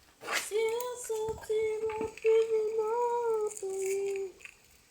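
A high voice singing or humming a short tune of held notes, with no clear words, for about four seconds.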